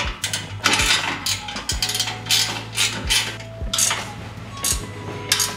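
Ratchet wrench clicking in short runs, with wrenches clinking against metal, as the 3/8-inch bolts holding the rear axle down are tightened.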